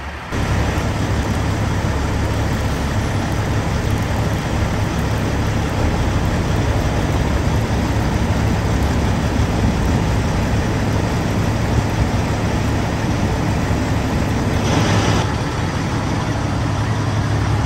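Semi-truck running down the road, heard from inside the cab: a steady rushing road noise over a low engine hum. It steps up suddenly right at the start, and a brief higher hiss comes about fifteen seconds in.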